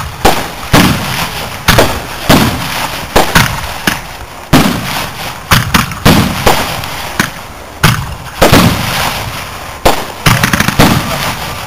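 Fireworks display: aerial shells bursting overhead one after another, a sharp report about every half-second to second, each trailing off in a rolling rumble.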